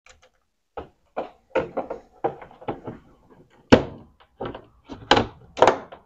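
Plastic control-panel housing of an Electrolux top-loading washing machine being handled and pressed into place: a run of about a dozen irregular plastic knocks and clicks. The loudest come a little past halfway and twice near the end.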